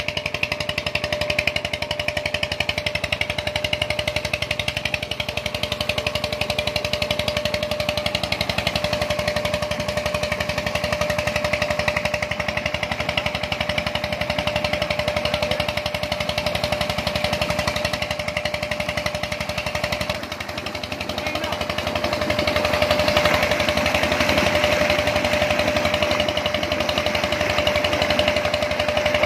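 Old Petter diesel engine chugging at a fast, even beat as it drives a tubewell pump. Water gushes from the outlet pipe and splashes into a brick tank, and the splashing grows louder about 22 seconds in.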